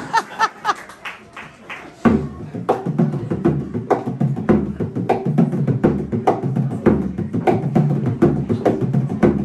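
Bodhrán, the Irish frame drum, played solo with a tipper: a quick, even rhythm of strokes whose low drum tone shifts up and down in pitch. It starts about two seconds in, after a brief moment of talk or laughter.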